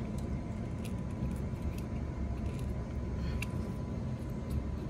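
A few light, scattered metallic clicks of a bolt being handled and fitted by hand, over a steady low rumble.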